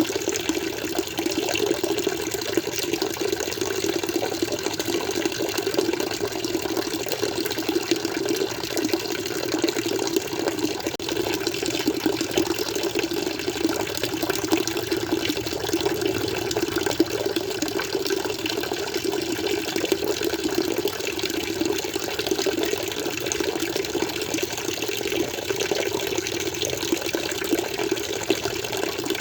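Water flowing and splashing steadily into an aquarium, a continuous gurgling rush with no change in level.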